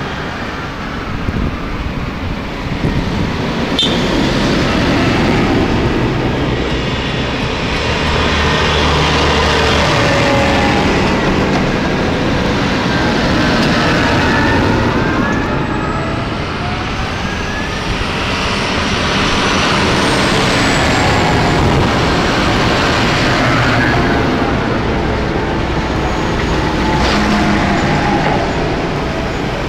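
Farm tractors driving past on a tarmac road one after another: diesel engines running with tyre noise, the sound swelling twice as each tractor comes close.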